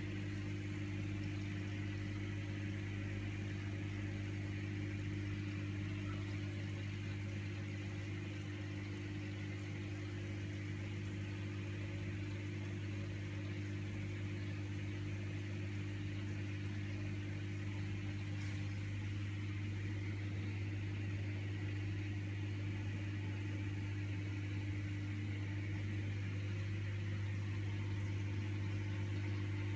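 Steady low electrical hum of aquarium pumps, with a soft hiss of water and air bubbles rising through the tank.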